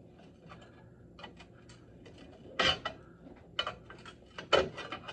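Steel pry bar levering an old snowmobile ski wear bar off its studs: light metal scraping and clicking, with louder metallic clanks about two and a half and four and a half seconds in.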